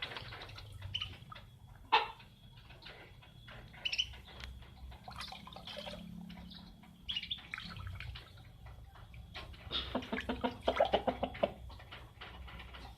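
Chickens clucking on and off, with a burst of quick repeated clucks about ten seconds in. Scattered short clicks and taps fall between the calls.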